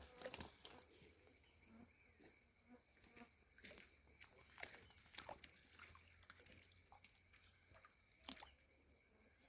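Faint, steady high-pitched trilling chorus of night insects, with a few soft clicks and knocks scattered through it.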